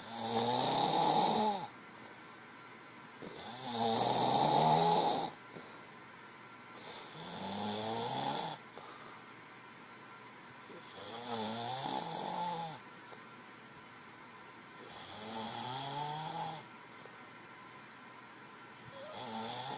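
A man snoring loudly: a long snore on each breath, about every four seconds, six in all, the last starting near the end.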